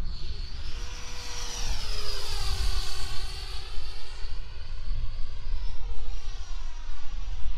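The 105mm electric ducted fan of an AF-Model Albatross model jet whining in flight. Its pitch falls about two seconds in as it passes, then holds steady as it climbs away. A low rumble runs underneath.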